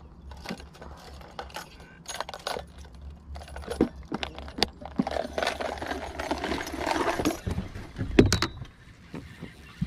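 Light metallic jingling and clicking of fishing gear being handled in a boat, with a louder knock about eight seconds in, over a faint steady low hum.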